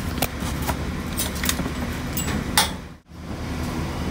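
Armoured bus's engine running with a steady low hum heard inside the cabin, with scattered clicks and rattles. A louder clack comes about two and a half seconds in, then the sound drops out briefly and the hum returns.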